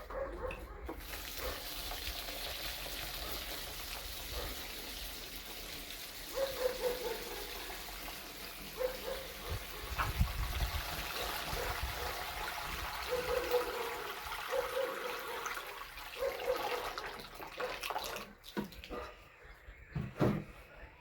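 Steady rush of running water, with several brief whines over it.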